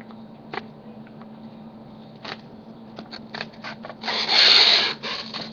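Paper being sliced with the small blade of a Swiss Army knife: a few light ticks and rustles, then a rustling swish of about a second near the end as the blade cuts through the sheet.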